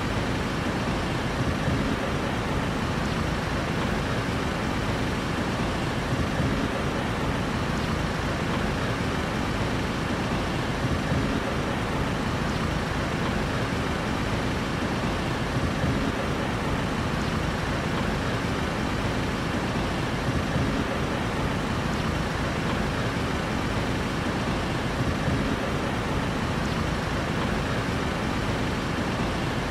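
Steady street traffic noise: an even, unbroken rumble with no single vehicle standing out.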